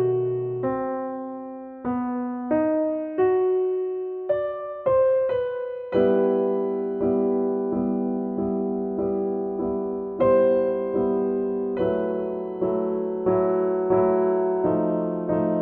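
Background piano music: struck notes that each ring and fade, sparse single notes at first, then fuller chords from about six seconds in, roughly one every two-thirds of a second.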